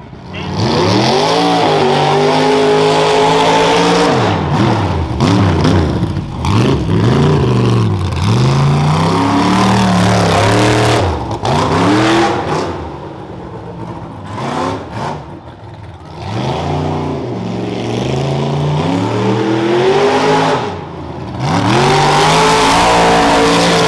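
Rough truck engine revving hard, its pitch climbing and dropping again and again as the throttle is opened and lifted, with a lower, quieter stretch about two-thirds of the way through.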